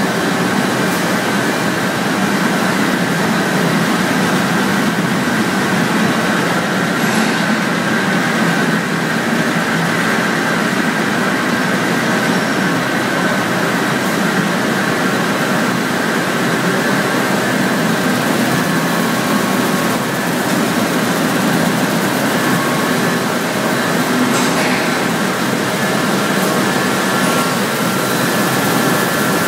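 Cornflake production-line machinery running: a loud, steady industrial din with a few steady high whining tones above it.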